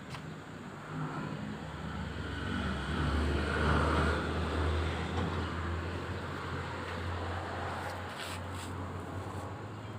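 Komatsu PC200-7 excavator's diesel engine running with a steady low hum. It picks up about a second in and is loudest around three to four seconds.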